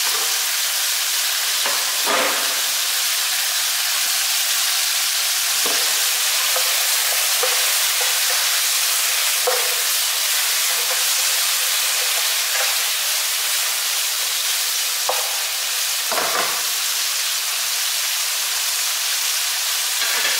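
Chicken and shrimp frying in a nonstick wok: a steady sizzle, with a spatula now and then scraping and knocking against the pan as the food is stirred.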